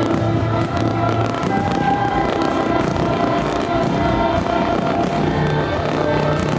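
Loud music with long held notes, over fireworks going off in many short pops and crackles throughout.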